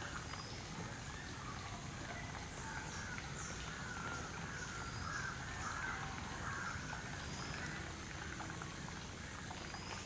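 Birds calling over steady outdoor background noise, with a cluster of harsh, rasping calls in the middle of the stretch and faint high chirps.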